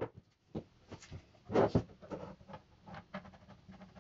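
Handling noise of wooden and metal parts on a workbench: scattered small clicks, taps and scrapes, with a louder knock about a second and a half in.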